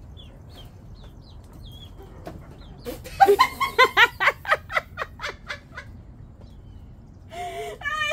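Chickens peeping faintly, then about three seconds in a woman breaks into hearty laughter, a rapid run of 'ha' pulses about four a second lasting some three seconds, with more laughing voice near the end.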